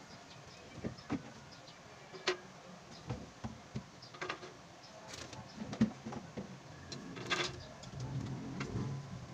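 Irregular knocks, clicks and light clatter of things being handled while a refrigerator is emptied and cleaned. A low hum comes up near the end.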